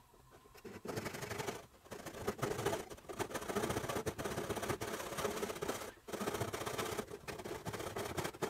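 Fine-toothed backsaw cutting down through a wooden chain blank in slow, steady strokes, starting about a second in, with brief pauses between strokes.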